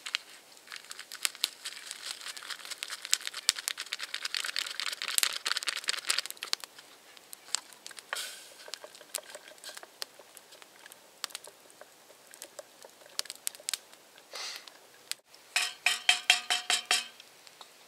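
A paper packet of hot chocolate mix crinkling and tearing as it is opened and emptied into a stainless steel pot. Near the end, a quick run of ringing metallic clinks: a spoon stirring against the pot.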